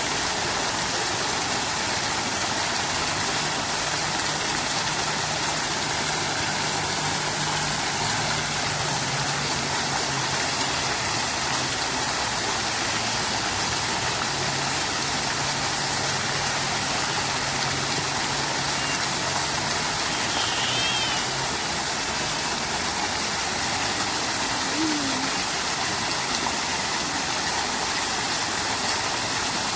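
Fountain water splashing and babbling steadily at an even level. A faint low hum runs under it through the middle.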